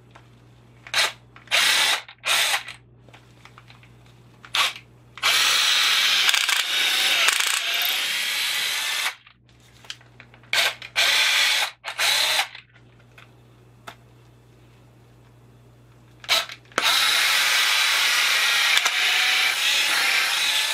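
Cordless power drill with a countersink bit boring pilot holes into a wooden blocking piece: a few short trigger pulls, then a run of about four seconds, more short pulls, and another long run near the end.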